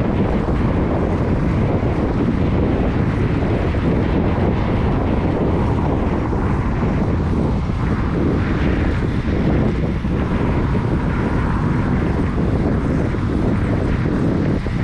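Steady wind rush and road noise on a GoPro's microphone while riding a bike at speed, heavy and low and unbroken throughout.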